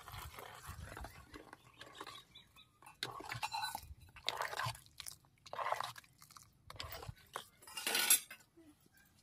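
Steel spoon stirring and scraping against the side of an aluminium cooking pot of milk and vermicelli: a series of short rasping strokes a little over a second apart, the last one the loudest.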